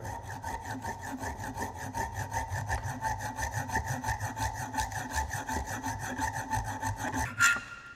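Hacksaw cutting through a metal bolt: a steady run of even back-and-forth strokes of the blade rasping through the metal. The strokes stop shortly before the end, with a brief sharp sound as they finish.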